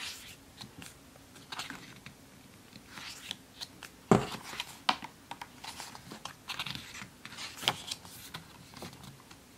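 Glossy pages of a thick photo book being turned and handled by hand: soft paper rustles and slides, with one sharper paper slap about four seconds in.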